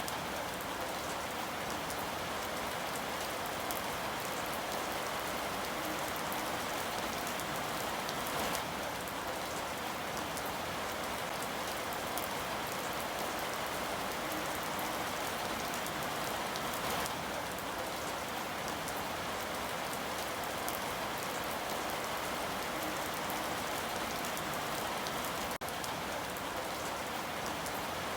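Steady rain falling, a dense even hiss of drops with faint individual drop ticks.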